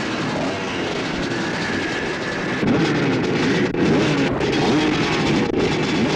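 A pack of two-stroke motocross bikes revving together while lined up for the start, with many engine notes rising and falling over one another. The revving gets louder about two and a half seconds in.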